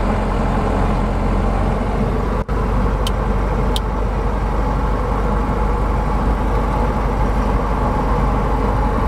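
Diamond DA40's piston engine and propeller running steadily at low taxi power, heard from inside the cockpit. Two short high chirps come about three seconds in, just after a momentary break in the sound.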